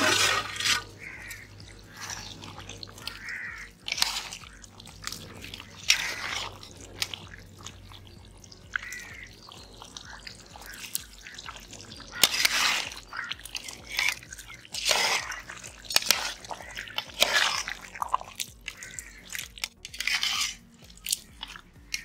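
A metal lid slid off a metal cooking pot at the start, then a metal ladle scraping and stirring chicken pieces in thick masala inside the pot, in a series of irregular strokes.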